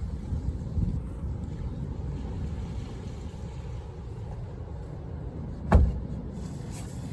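Low, buffeting rumble of wind on the microphone, with a single sharp knock a little under six seconds in.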